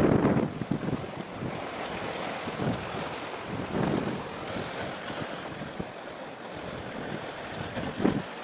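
Wind buffeting the microphone in gusts, loudest at the start, about four seconds in and near the end, over a steady wash of sea waves.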